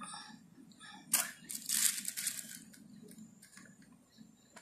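A burst of crinkling, crackling paper noise about a second in, lasting about a second and a half, with a few fainter rustles after it: the butter paper under the shawarma bread being handled.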